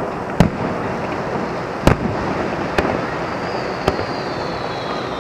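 Aerial fireworks shells bursting: four sharp bangs spaced about a second apart over steady background noise, with a faint high whistle slowly falling in pitch near the end.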